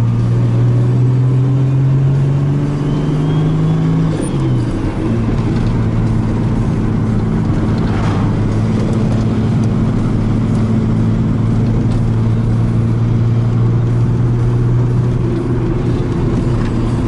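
Turbocharged car engine under way: the revs climb slowly for about four seconds, drop with a gear change, then hold steady at a cruise.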